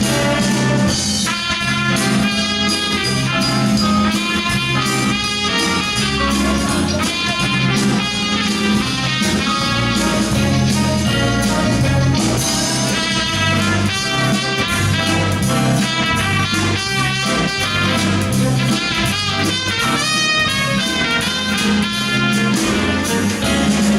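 Instrumental break of a pop song, with no singing: a melodic lead line, likely guitar, over a repeating bass line and a steady beat.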